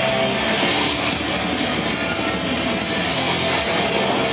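Rock background music.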